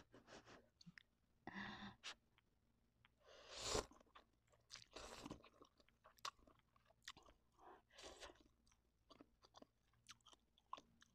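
Quiet close-up eating sounds: instant noodles slurped off a fork and chewed, with small wet mouth clicks and several short noisy slurps, the loudest about four seconds in.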